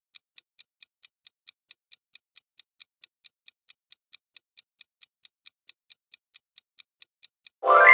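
Countdown timer sound effect: clock-like ticking, about four and a half ticks a second, then a loud ringing chime near the end as the time runs out.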